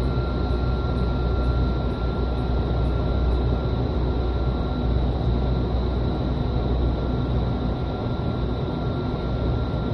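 Indoor skydiving vertical wind tunnel running at flying speed: a steady rush of air with a deep rumble underneath and a faint, steady high whine.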